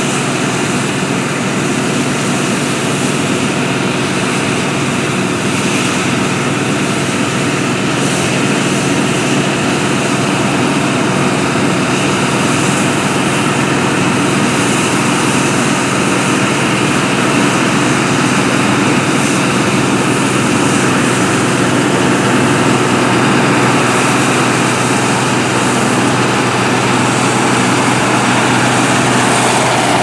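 Claas Dominator 108 combine harvester running steadily under load while cutting oilseed rape. Its engine and threshing gear make a steady hum that grows slightly louder as the machine comes closer.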